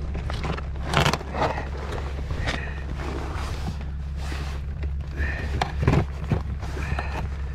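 Cord being pulled tight and knotted around a plastic tote lashed to a toboggan: irregular rubbing and scraping of rope and rain-jacket sleeves close by, with a few knocks and several short high squeaks.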